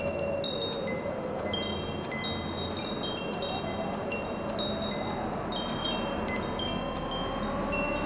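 Ambient soundtrack music built from high, tinkling wind-chime notes struck at irregular moments, over a steady wind-like hiss and a slowly drifting low sustained tone.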